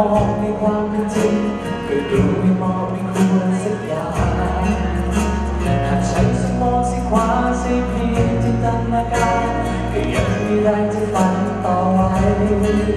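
Male vocalist singing live into a handheld microphone over a band accompaniment, with bass notes that change every couple of seconds and a steady beat.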